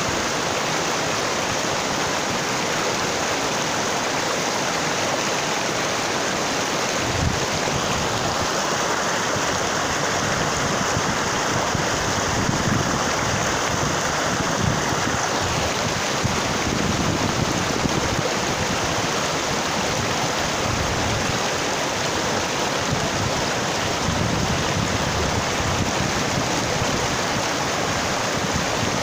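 Shallow mountain stream rushing steadily over and between boulders. A faint, steady high tone joins in for several seconds in the middle.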